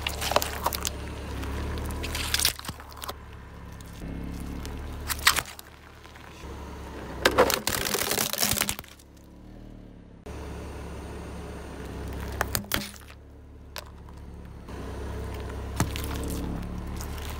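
A car tyre slowly rolling over and crushing toys, over the low, steady running of the car's engine. Sharp cracks and pops come at intervals, and a dense run of plastic cracking and crunching comes a little over seven seconds in, as a hard plastic toy car body breaks under the wheel.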